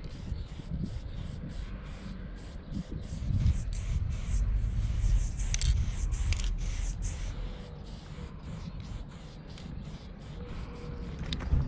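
Aerosol spray paint can hissing as paint is sprayed onto a wall, going on and off in short bursts.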